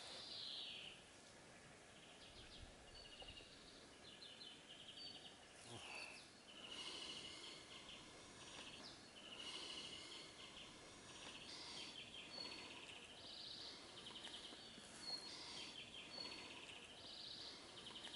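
Faint songbirds singing and calling, with quick trills and short high whistles repeating every second or two.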